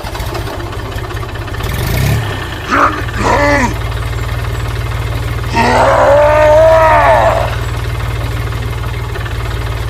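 Small engine running steadily with a low, even putter as the mini tractor sets off. A voice gives short groan-like calls about 3 s in and a longer, louder one around 6 s.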